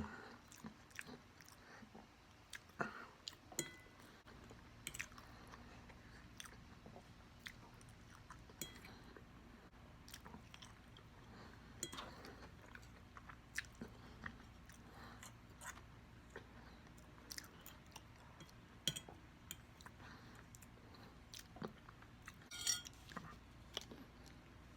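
Faint chewing of food with soft mouth sounds and scattered short crunches and clicks.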